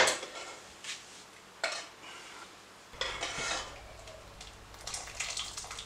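Metal ladle clinking and scraping against a cooking pot as it stirs a thick parsley sauce: a few sharp knocks in the first two seconds, then longer scraping strokes about three and five seconds in.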